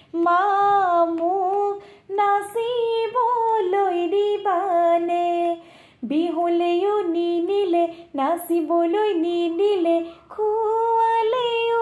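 A woman singing an Assamese Bihu naam folk song solo and unaccompanied, in short phrases broken by brief pauses for breath.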